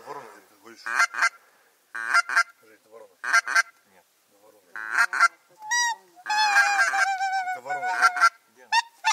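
Goose call blown in loud, clipped honks, in pairs about once a second, then a longer unbroken string of honks in the second half.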